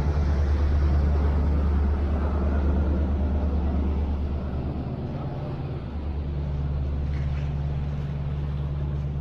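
Sport-fishing boat's engines droning steadily as it passes close by and heads away, with water rushing in its wake; loudest about a second in, then slowly fading.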